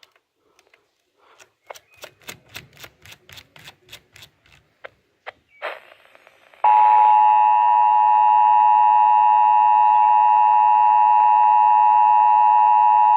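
A run of faint sharp clicks and crackles, then, about two-thirds of the way in, a loud steady two-note alert tone of close pitches near 1 kHz starts suddenly and holds. This is the Emergency Alert System attention signal, which comes before a severe thunderstorm warning is read.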